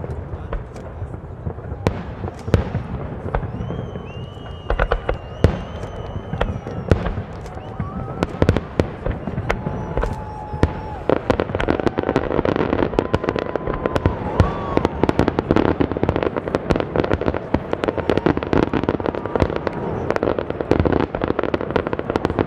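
Aerial fireworks bursting in a rapid barrage of bangs and crackles, with several whistling tones held for a second or so each. About halfway through the crackling turns dense and continuous.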